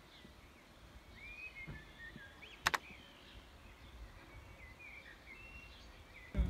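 Birds singing and calling among trees: scattered short chirps and whistles over a low outdoor rumble. A sharp double click sounds about two and a half seconds in.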